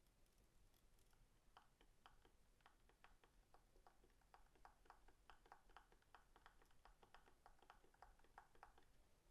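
Faint, quick key clicks of typing on a Logitech Craft wireless keyboard, several a second, starting about a second and a half in.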